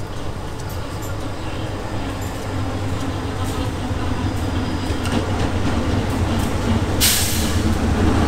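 GE diesel-electric locomotive (Thai GEA class) approaching on the adjacent track, its engine drone growing steadily louder as it draws near. A short hiss sounds about seven seconds in.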